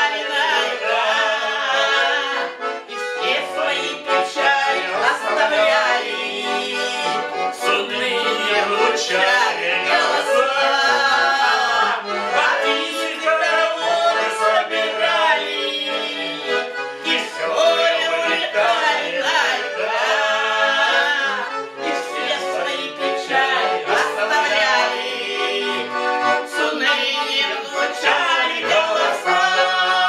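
Russian garmon (button accordion) playing a lively folk tune, with a man's and a woman's voice singing along loudly without clear words.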